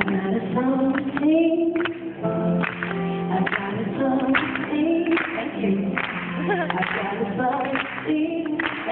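A woman singing a worship song into a handheld microphone over instrumental backing, amplified through a PA, with long held notes.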